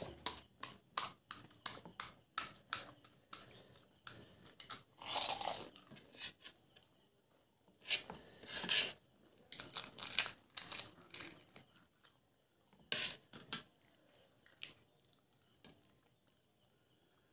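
Chewing and crunching of crisp pani puri shells, with sharp cracks as the hollow puris are broken open, coming in quick runs of short crackles that thin out near the end.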